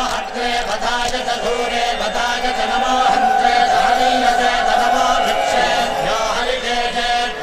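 A group of devotees singing a devotional chant together during an aarti lamp offering, with a long held note in the middle.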